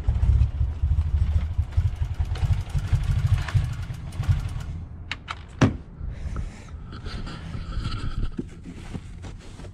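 A 2018 Subaru WRX's 2.0-litre turbocharged flat-four engine running roughly and stumbling, then dying out about four to five seconds in. It is starved of fuel because the fuel pump fuse has been pulled to bleed off fuel pressure. A few clicks and a knock follow after it stops.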